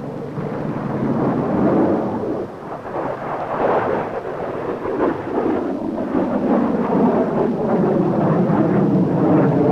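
Aircraft engine noise from a plane flying a display: a loud, rough rumble that builds over the first couple of seconds and then holds.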